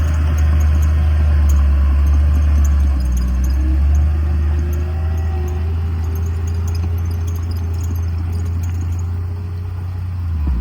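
Heavy diesel engine of earthmoving machinery running steadily, with a deep low rumble and a slowly drifting engine pitch; it eases off briefly near the end.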